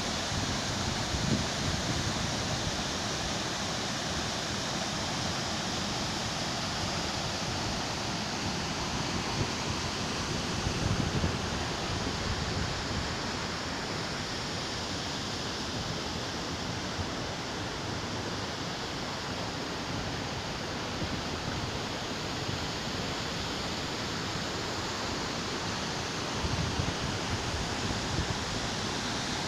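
Belye Mosty waterfall rushing steadily, in full flow after a rainy summer. A few low rumbles of wind on the microphone come about a second in, around ten seconds in, and near the end.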